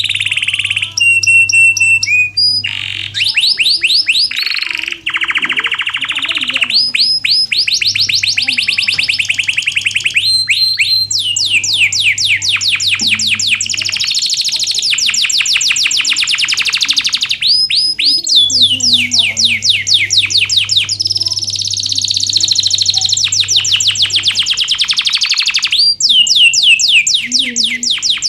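Domestic canary singing continuously: long rolling trills of rapid repeated notes and sweeping whistles, phrase after phrase with short breaks.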